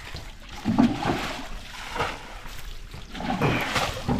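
Water splashing and sloshing in irregular bursts in a shallow pit that is being drained of water to get at the fish.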